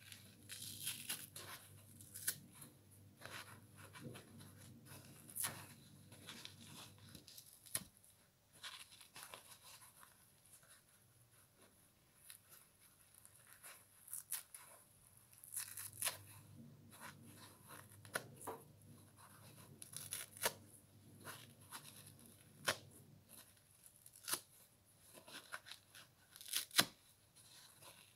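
Fingers plucking and tearing small pieces off a foam kitchen sponge: a string of irregular soft rips, now and then a sharper, louder one.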